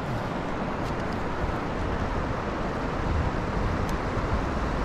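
Steady outdoor rushing noise, even and unbroken, with no distinct events.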